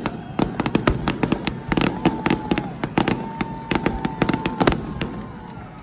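Fireworks display: a rapid, irregular string of sharp bangs and crackles from bursting aerial shells, thinning out near the end.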